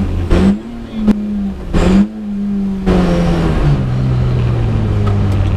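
Lada 21074's four-cylinder engine heard from inside the cabin, running hard with a few brief breaks and sharp cracks in the first two seconds. Its note then drops in two steps, about three and four seconds in, as the car slows for a chicane.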